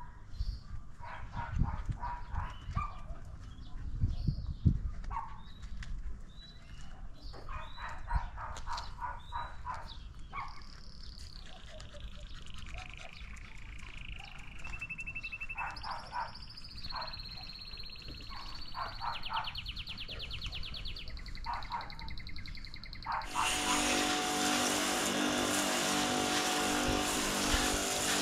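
Birds chirping and whistling, with a few dull knocks in the first seconds. Near the end an electric pressure washer starts up: a steady motor hum under the loud hiss of its jet spraying the motorcycle.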